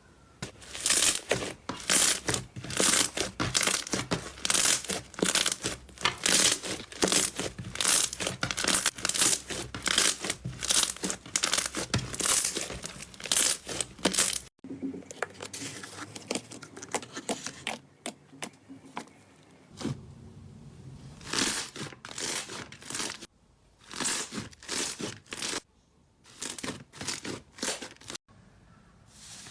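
Slime being squeezed and pressed by hand, giving rapid sticky crackling and popping. About halfway through it cuts abruptly to another slime with slower, sparser bursts of crackles.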